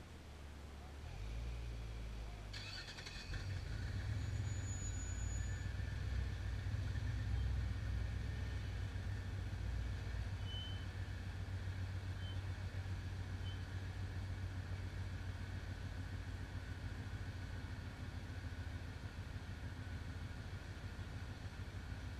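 Rock crawler's engine running as the buggy climbs a rock ledge. It gets louder about three seconds in and then holds steady, with a faint steady high whine over it.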